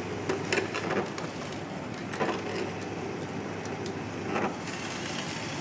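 Twin-gear masticating juicer running with a steady low hum while its gears crush pieces of ginger, giving scattered cracks and crunches.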